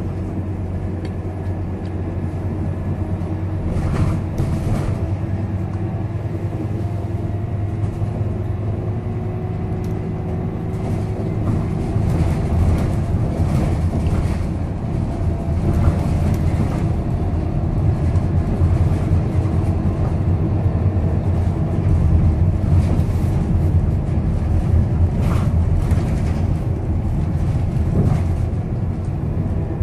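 Scania K230UB bus's five-cylinder diesel engine running under way, heard from inside the passenger saloon as a steady low drone that grows louder about twelve seconds in. A faint whine slides in pitch around the middle, and short knocks and rattles come through now and then.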